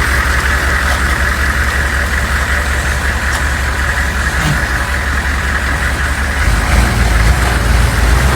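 Humvee's V8 diesel engine idling with a steady low rumble, its note shifting and getting a little louder about six and a half seconds in.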